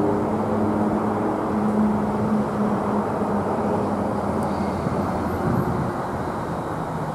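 Airbus A330 airliner on landing approach with its gear down, its jet engines making a steady rumbling roar. A low hum in the roar fades out about halfway through, and the sound eases slightly near the end as the plane draws away.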